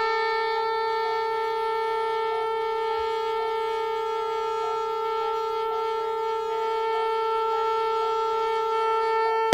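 Music from a 1979 jazz recording: one long note held on a single steady pitch, with faint short notes flickering above it, in the manner of an old crime-series theme opening.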